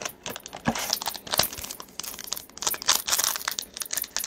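A trading-card pack's wrapper crinkling and tearing as it is ripped open by hand, a dense run of sharp crackles.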